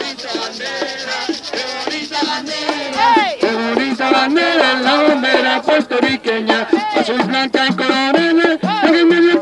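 Panderos (hand-held frame drums) beaten in a steady, quick rhythm while a group sings, growing louder about three seconds in.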